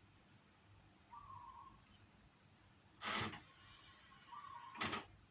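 Quiet cassette tape playback from an Onkyo Integra TA-R77 deck: faint short chirping tones over a low background, broken twice by short loud bursts of noise, about three seconds in and again near the end.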